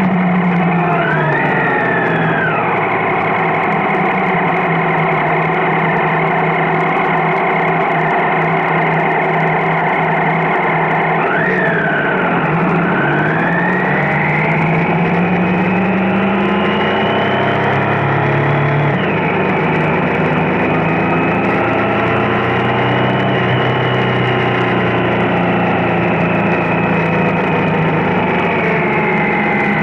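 A vehicle engine running under way, its pitch climbing as it accelerates and dropping sharply a few times at gear changes.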